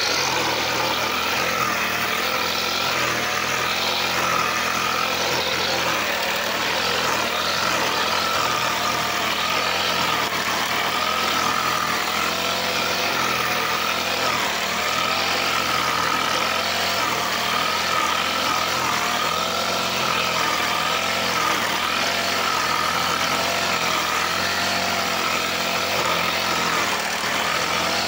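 Brush cutter with a nylon-line trimmer head running steadily while cutting grass. Its pitch wavers slightly up and down, over and over, through the whole stretch.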